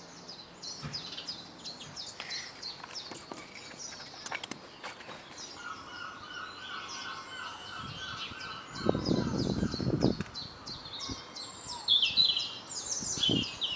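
Garden birdsong: several birds chirping and singing, with a run of repeated lower notes midway. About two-thirds of the way in comes a loud noisy rumble lasting about a second, and near the end a short thump.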